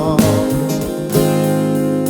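Instrumental music: acoustic guitar strumming held chords, two strums about a second apart, with the tail of a sung note dying away at the start.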